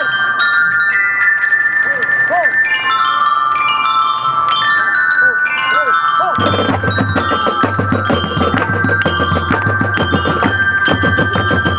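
Marching band's glockenspiels ringing out a stepwise melody. About six seconds in, snare and bass drums join with a fast, steady beat under the bells.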